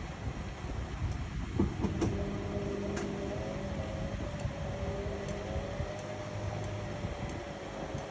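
Indesit MyTime EWE 71252 washing machine running: a steady whine that wavers slightly in pitch. A lower motor hum starts about two seconds in and stops near the end, and there is a single light click about three seconds in.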